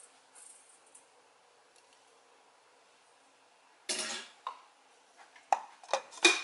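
Several sharp plastic clicks and knocks near the end as the clear plastic lid is set onto an electric coffee grinder, after a short noise about four seconds in; before that, quiet room tone. The grinder is not running.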